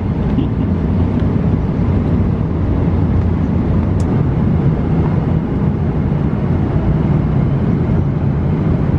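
Steady roar of an airliner cabin at cruise altitude: engine and airflow noise heard from inside the cabin, even and unbroken.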